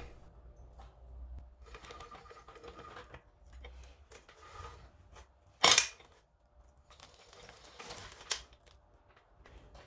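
A new motorcycle roller chain clicking and rattling as it is looped around the sprockets by hand, with one loud sharp knock about six seconds in.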